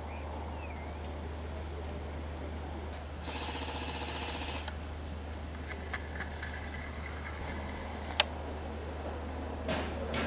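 Airsoft guns firing at a distance: a burst of rapid shots lasting about a second and a half, then a single sharp snap about eight seconds in and a few clicks near the end, over a steady low hum.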